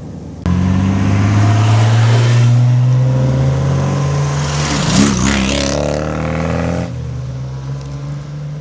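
A car engine running loud and steady, cutting in suddenly about half a second in, with a swell of rushing noise around five seconds in, then dropping to a quieter steady note about seven seconds in.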